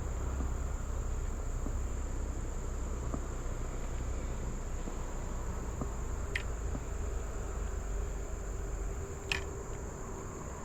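Steady high-pitched insect chorus over a low rumble, with two short high chirps a few seconds apart in the second half.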